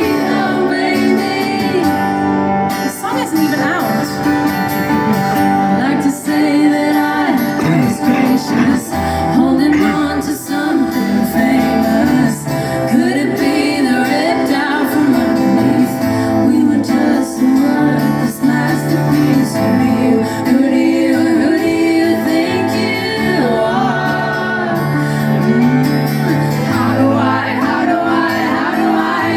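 A live band playing a song, with a woman singing lead over guitar and a bass line.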